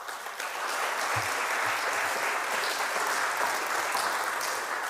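Audience applauding, building up quickly and holding steady before fading near the end.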